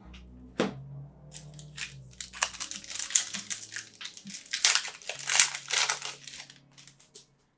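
Baseball card pack wrapper being torn open and crinkled: one sharp crackle about half a second in, then a flurry of crinkling and tearing through the middle that dies away near the end.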